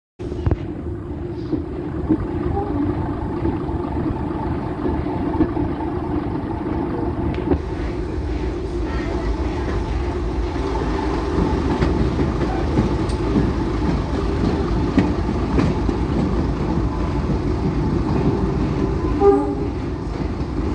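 Train running through a tunnel, heard from on board: a steady, loud rumble of wheels and running gear, with occasional clacks from the rails and one louder knock near the end.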